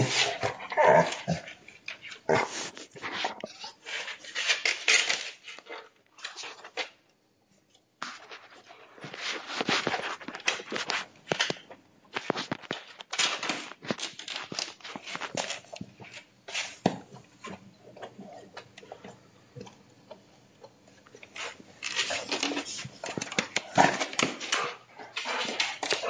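Bad-tempered dog barking in irregular bursts, with a silent break of about a second some seven seconds in.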